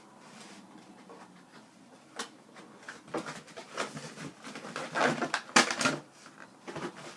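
Hands working at a boxed replica glove's packaging, freeing it from tape and wire ties: scattered clicks and taps, then a louder stretch of rustling and handling from about three seconds in.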